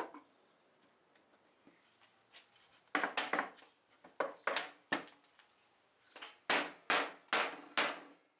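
Black rubber mallet striking the wooden rail of a Broyhill Brasilia dining table: two runs of quick blows, the first starting about three seconds in, the second about six seconds in.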